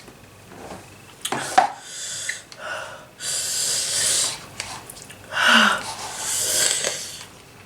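A person breathing hard through the mouth: several loud, hissing breaths in and out, the longest lasting about a second, as they try to cool the burn of extra-spicy noodles.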